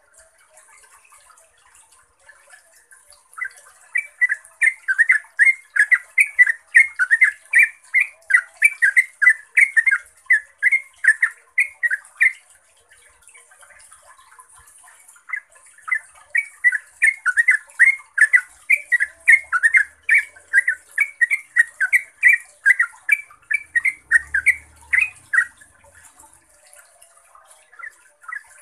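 Yellow-vented bulbul singing its long rolling song: a fast run of bubbly notes, about three a second, starting a few seconds in and lasting about eight seconds, then after a short pause a second run of about ten seconds. A steady high hiss lies underneath.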